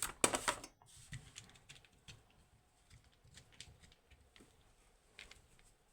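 Small metal parts and hand tools clicking and scraping as a padlock is taken apart: a short scratchy scrape at the start, then scattered light ticks.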